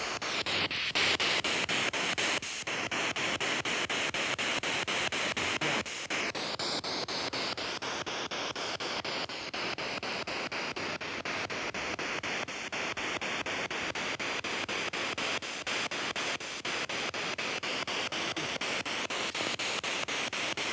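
P-SB7 spirit box sweeping through radio stations: a steady rush of static, chopped into rapid even steps as it jumps from channel to channel.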